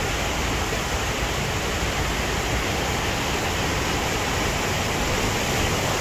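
Large waterfall flowing fast: a steady rush of falling water, loud and unbroken.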